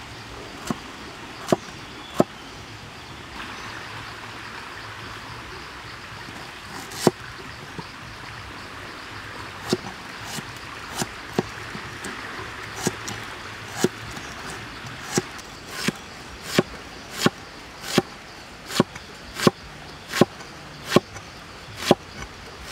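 Cleaver chopping vegetables on a wooden board: a few scattered knocks at first, then from about ten seconds in a steady run of chops, roughly one every 0.7 seconds, as a red onion is sliced. A steady hiss lies underneath.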